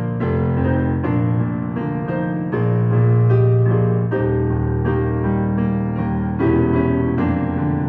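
Slow piano music: held chords that change every second or two, played on a digital piano.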